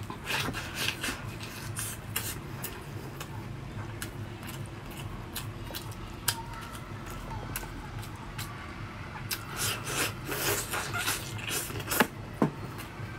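Close-up eating sounds of braised pork being bitten and chewed off the bone: wet chewing, lip smacks and sharp clicks, busiest about ten seconds in, with one sharp click near the end.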